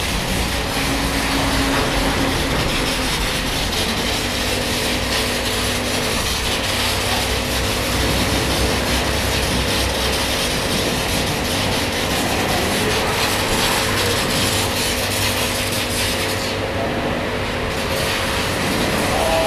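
Car-wash foam lance spraying foam onto a motorcycle with a steady hiss, over a faint steady hum. The hiss thins briefly near the end.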